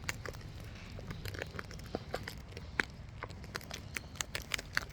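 Wild parrots cracking and crunching seed in their beaks: irregular sharp clicks and crunches, several a second.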